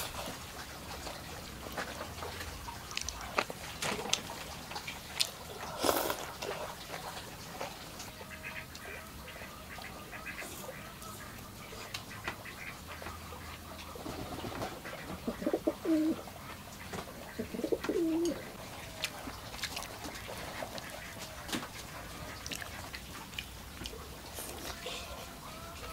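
Birds calling in the background, with two louder low, wavering calls about three seconds apart past the middle, over scattered light clicks of chopsticks against a bowl.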